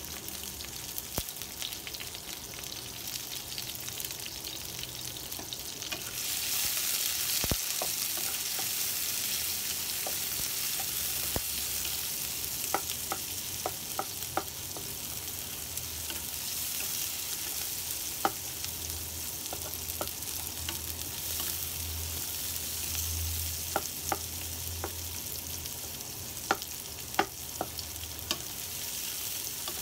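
Sliced shallots and garlic sizzling in hot oil in a non-stick wok, the sizzle growing louder about six seconds in. A wooden spatula stirs them, with scattered light clicks and taps against the pan.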